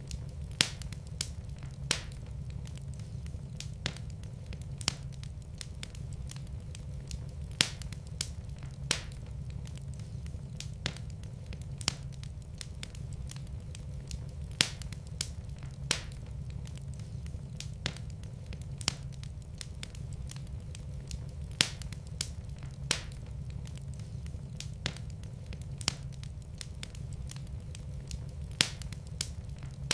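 Wood fire in a fireplace crackling and popping: irregular sharp snaps, a few a second, some much louder than the rest, over a steady low rumble of the flames.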